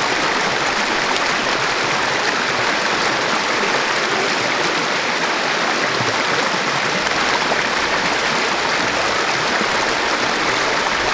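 Shallow rocky stream rushing and splashing steadily over stones and a small cascade close by, loud and unbroken.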